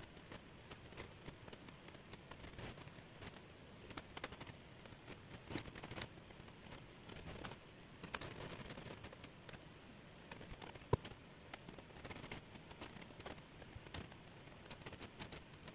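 Small laser-cut plywood jigsaw pieces clicking and rustling as hands pick them up, sort them and slide them across a tabletop, with many light clicks and one sharper click about eleven seconds in.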